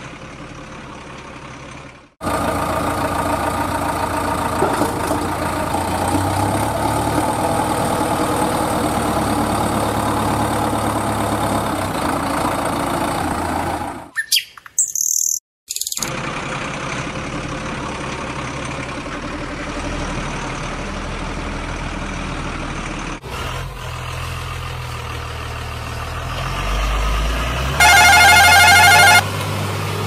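Truck engine sounds running in several edited sections, with birds chirping. About two seconds before the end comes a short, loud wavering tone.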